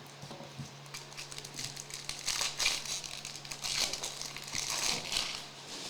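Crinkling and rustling of trading-card packs and cards being handled: light, scratchy rustles that get busier about two seconds in, over a steady low hum.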